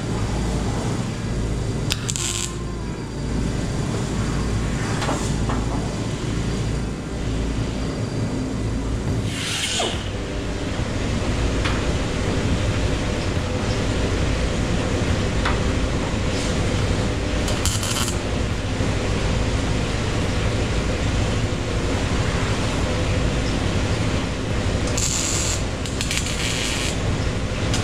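Sheet-metal fabrication in a shop: a MIG welder tack-welding steel taillight buckets into a tail pan, and an air-powered hand tool running in short bursts.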